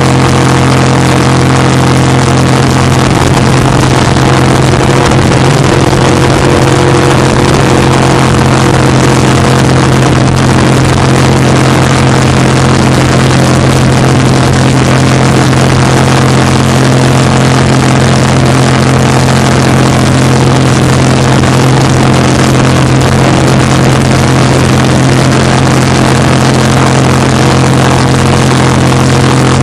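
Racing jet boat's engine running loud and steady at a constant pitch, heard from on board at high speed.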